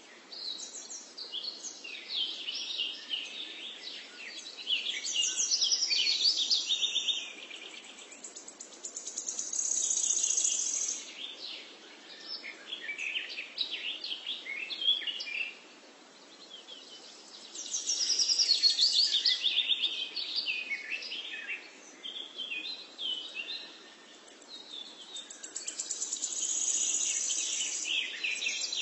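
A bird singing in long bursts of rapid, high-pitched chirps and trills, each a few seconds long, with short lulls between them.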